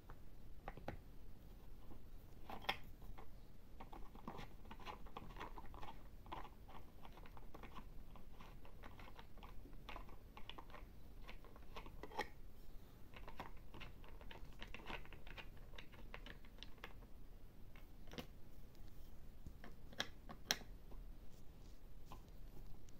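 Plastic toy screwdriver turning plastic screws in a toy take-apart truck, with irregular light clicks and rattles of plastic parts being handled. A few sharper clicks stand out.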